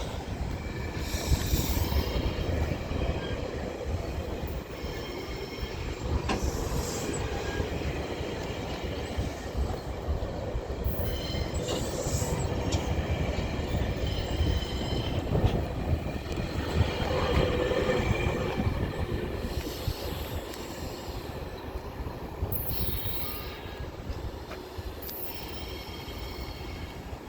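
Train rolling along with a steady low rumble, its steel wheels squealing high-pitched on the rails in repeated bouts every few seconds.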